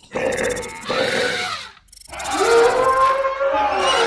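Stock animal call sound effects: a rough, noisy call for about a second and a half, then, after a short gap, a longer pitched call that holds a steady tone.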